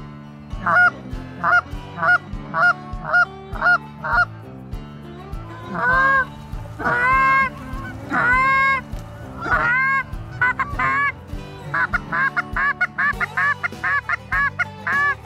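Canada geese honking: a run of short, evenly spaced honks, then several long drawn-out honks that rise in pitch at the start from about six seconds in, and a quick run of short clucks near the end.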